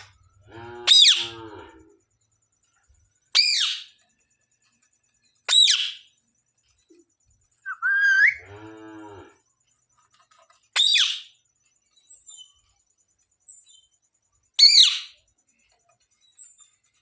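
Green parakeet giving short, sharp, high screeching calls about five times, each falling quickly in pitch, with two lower, drawn-out calls in between.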